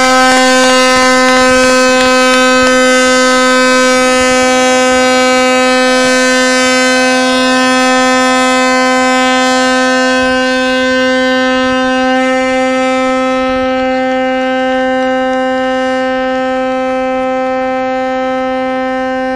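Ship's horn sounding one long, steady blast that cuts off sharply, with a fainter second tone joining for a few seconds midway: a horn salute marking the ship's christening.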